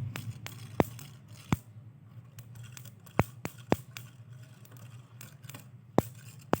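Sharp, irregular clicks and ticks over faint scraping, with a low hum fading out at the start.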